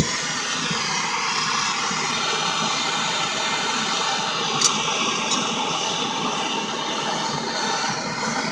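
MAP gas blowtorch flame hissing steadily, coming on suddenly at the start.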